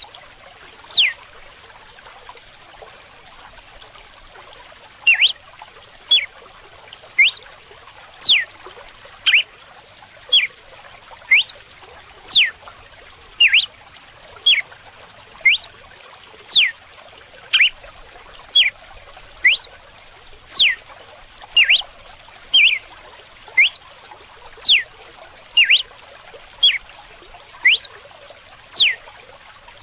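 Red-cowled cardinal (galo-de-campina) giving its whip song: sharp whistled notes, each a quick sweep up or down in pitch, about one a second after a pause of a few seconds near the start. Running water trickles steadily underneath.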